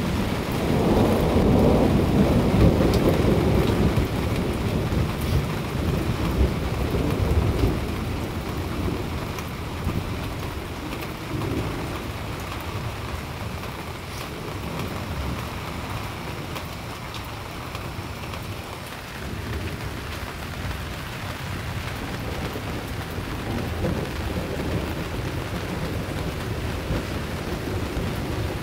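Thunderstorm: a long roll of thunder, loudest in the first few seconds and slowly dying away, over steady rain. Fainter rumbles of thunder come back later.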